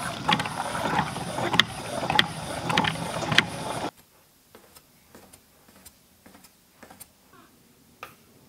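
Hand-turned stone mill grinding soaked soybeans: a steady stone-on-stone grinding with a sharp click about every 0.6 seconds. It cuts off about four seconds in, leaving only faint scattered ticks.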